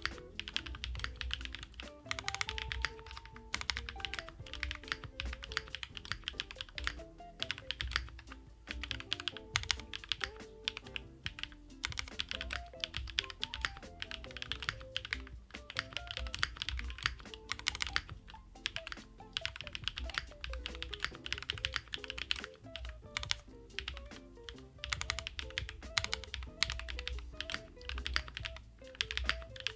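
Steady, fast typing on a Sakura Studio Fuji 75 mechanical keyboard: JWK Night Sakura switches lubed with Tribosys 3204, on an aluminium plate with Poron plate foam, under JTK keycaps, giving a dense run of irregular key clacks. Soft background music with a melody plays underneath.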